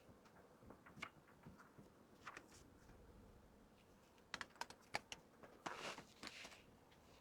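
Faint clicks, taps and rustling of merchandise and packaging being handled, with a quick run of clicks about four to five seconds in and a short rustle just after.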